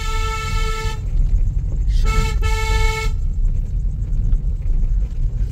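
Car horn sounding twice, each blast about a second long, the second briefly broken, over the steady low rumble of a vehicle engine.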